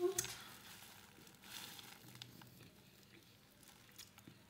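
Faint chewing of a mouthful of sandwich: soft, scattered mouth clicks, with a brief louder sound right at the start.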